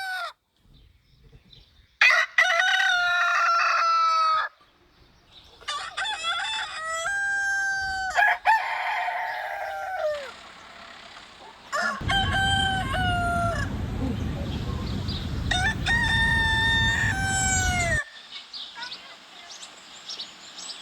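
Roosters crowing: a run of about six long cock-a-doodle-doos one after another, some overlapping. About halfway through a low rumble comes in under the crows for about six seconds, then cuts off.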